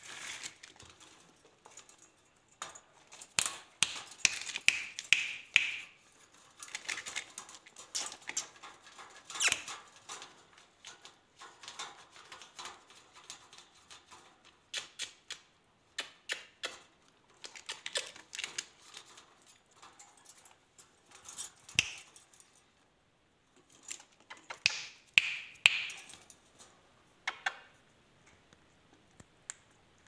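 Irregular clicking and light metallic rattling of a wire bird cage, its bars knocked and shaken in uneven clusters. The busiest stretches come a few seconds in and again near the end, with short gaps between.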